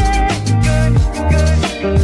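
Music track with a steady drum beat and a bass line under pitched instrument notes.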